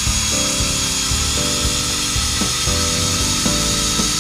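Cordless drill-driver running steadily with a high motor whine, driving a screw into a timber beam, over background music.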